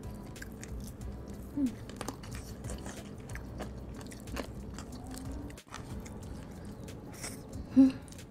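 Close-up chewing and biting of crispy fried chicken, with small crunches and mouth clicks. A brief louder hum-like mouth sound near the end.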